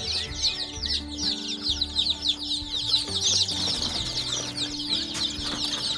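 A brood of young local chicks peeping constantly, many short, high, falling chirps overlapping.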